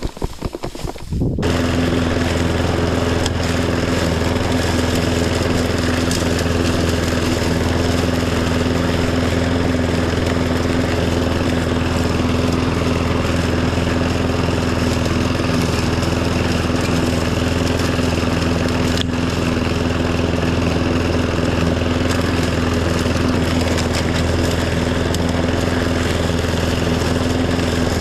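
Riding tractor mower's engine running steadily at a constant speed. It comes in about a second in, after a short stretch of uneven knocking.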